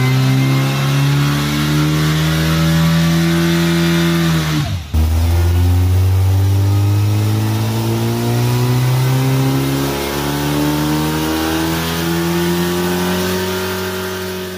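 Sprintex-supercharged Volkswagen Type 1 air-cooled flat-four running on an engine dynamometer, its pitch climbing steadily as it is swept up through the revs under load. About five seconds in it drops away sharply, then climbs again through a second, longer rise.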